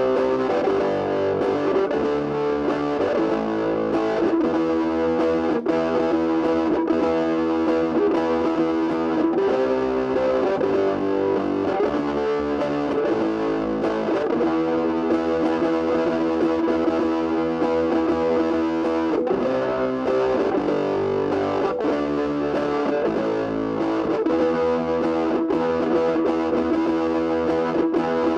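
Electric guitar played through a Cornel Fire Legend GA15 small practice amp on its overdrive channel: a continuous passage of distorted picked notes at a steady level.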